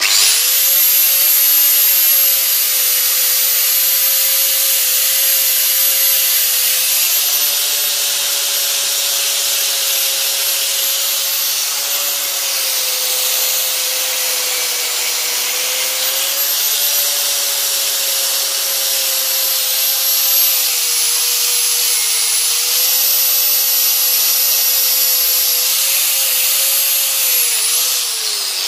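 Electric angle grinder running with its wheel against the steel hammer head, cleaning off rust: a steady motor whine over a rough grinding hiss, dipping slightly in pitch as it is pressed on, and starting to wind down at the very end.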